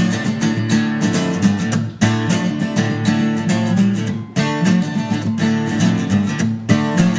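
Acoustic guitar strumming a steady, up-tempo country rhythm in an instrumental passage with no singing, with brief breaks about two seconds in and again just after four.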